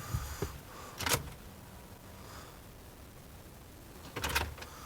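A brief knock about a second in and a short cluster of clicks near the end over low background hiss; the engine is not running.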